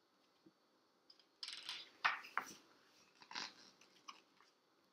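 A page of a picture book being turned by hand: a papery rustle and slide about a second and a half in, followed by a few lighter rustles.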